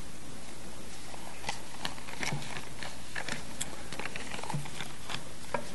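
A congregation sitting back down and settling in: scattered soft knocks, creaks and rustles over a steady room hiss.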